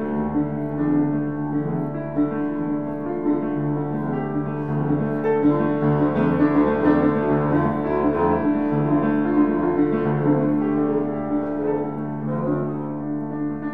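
Piano and double bass playing an improvised duet: the piano plays many quick, overlapping notes over held low tones.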